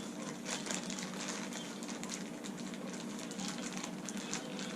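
Steady low hum with faint scattered crackling: room background noise.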